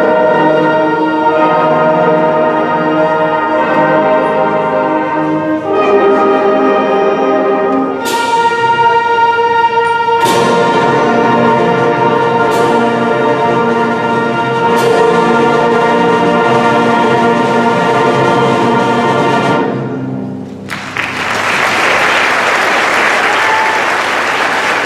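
School concert band playing the closing bars of a piece: full sustained brass and woodwind chords, with four sharp percussion strikes about two seconds apart. The final chord cuts off, and audience applause follows near the end.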